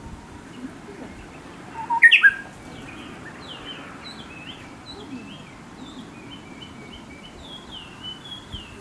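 A wild songbird singing: a loud short rising phrase about two seconds in, followed by a long run of repeated short, high, downslurred notes that gets quicker near the end.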